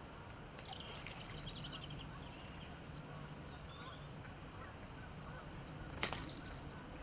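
A groundbait catapult with a rigid pouch and strong elastic is fired once about six seconds in, giving a single sharp snap. Before it, a few faint high bird calls with falling pitch sound over a steady low hum.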